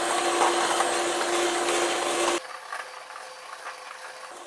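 Electric mixer beating butter, oil and sugar, running at a steady pitch, then switched off about two seconds in. Faint clicks and knocks follow.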